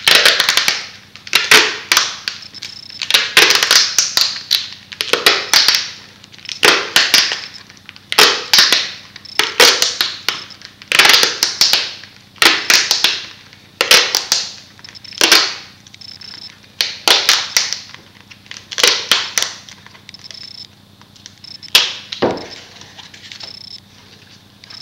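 Duct tape being pulled off the roll in long crackling rips as it is wound round and round a sword handle, one rip about every second and a half, ending shortly before the close.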